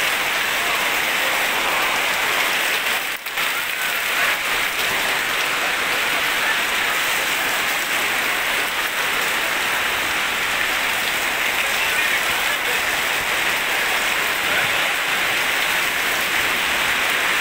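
Heavy rain pouring down in a steady, dense hiss, with a brief dip about three seconds in.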